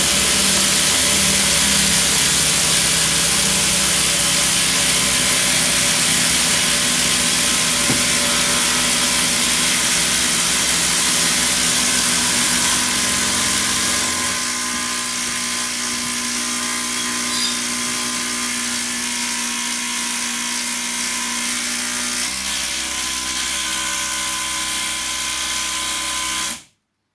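Makita 40V XGT impact drivers and impact wrenches hammering continuously while driving 10-inch, 7 mm stainless timber screws into timber. About halfway through the sound gets quieter as tools finish, and it cuts off suddenly near the end as the last impact driver, working near its limit, seats its screw.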